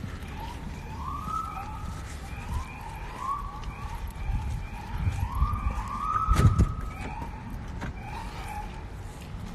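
A siren sounding in repeated rising sweeps, about one a second, over a low rumble of handling noise, with one loud knock about six seconds in.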